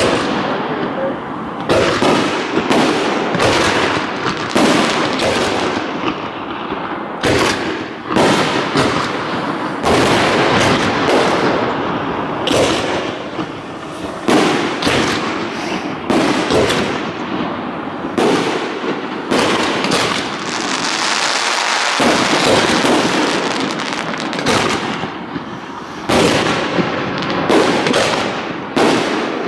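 Aerial fireworks shells bursting in quick succession, a near-continuous run of loud bangs and crackle, with a stretch of steady hiss around twenty seconds in.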